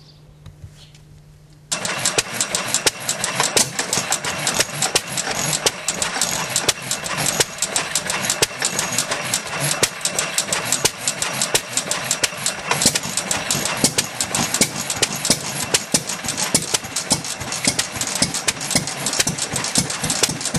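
Antique hopper-cooled stationary gas engine running, a loud, fast clatter of firing and valve knocks that starts suddenly about two seconds in.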